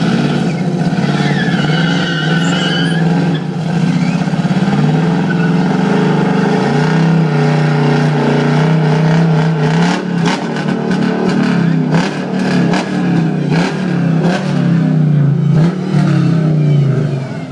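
Dodge Challenger V8 engine running hard at high revs while the car drifts. The note holds fairly steady for the first half, then rises and falls over and over with the throttle in the last several seconds.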